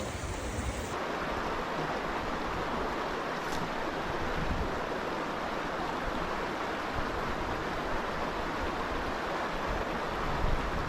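River water rushing steadily over a riffle, a continuous even wash of water noise.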